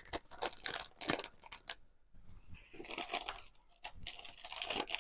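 Sticker sheets and small mail items being handled: light crinkling of paper and plastic with a quick run of small clicks and taps, quieter in the middle and picking up again near the end.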